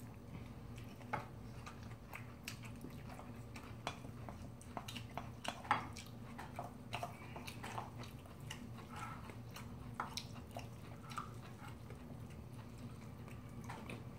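People chewing mixed bibimbap, with scattered short clicks and scrapes of a spoon and chopsticks against a stainless steel mixing bowl and ceramic bowls. A steady low hum runs underneath.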